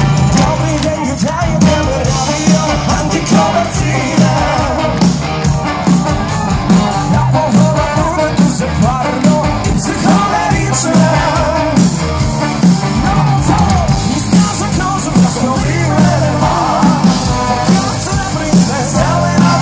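A Polish folk-rock band playing live through a PA, heard from among the audience: a steady drumbeat with bass, brass and a lead singer.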